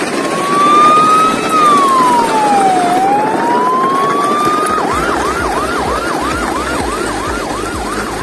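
Electronic siren: a slow wail that rises, falls and rises again, then switches at about five seconds to a fast yelp, about two and a half whoops a second.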